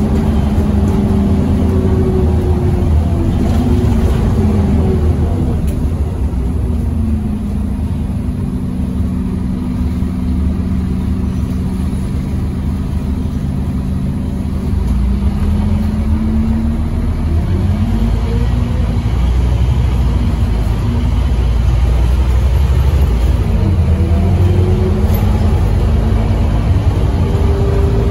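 Scania OmniCity double-decker bus heard from inside the passenger saloon: a deep engine rumble with an engine note that rises and falls several times as the bus speeds up and eases off.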